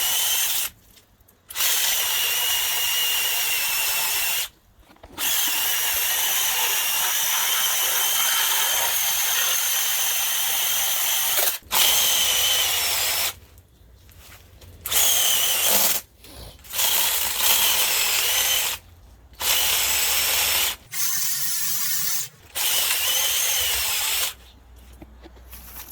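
Small electric Zeeksaw mini chainsaw running in repeated bursts with a high whine, starting and stopping suddenly as the trigger is pressed and released, about nine times.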